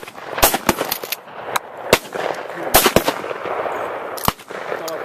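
Rapid, overlapping shotgun fire from several hunters shooting at flushed pheasants: about a dozen sharp shots at uneven spacing, bunched in the first three seconds, then one more near the end.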